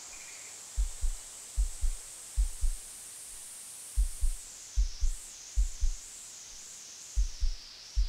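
Live electronic music from analog synthesizers and a drum machine: a deep doubled kick pulse, like a heartbeat, repeating about every 0.8 s with the odd beat left out. Above it, a high filtered hiss sweeps down and wobbles in the second half.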